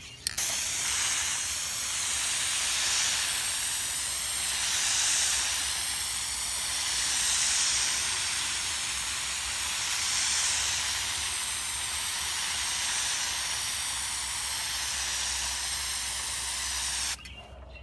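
Aerosol can of Krylon Looking Glass silver spray paint hissing in one long continuous spray, swelling a few times along the way. It starts about half a second in and cuts off suddenly near the end.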